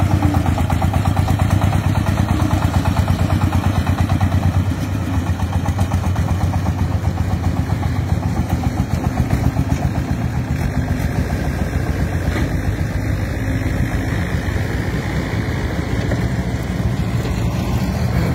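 Single-cylinder diesel engine of a loaded công nông farm truck chugging steadily with a fast, even beat, a little fainter after about five seconds.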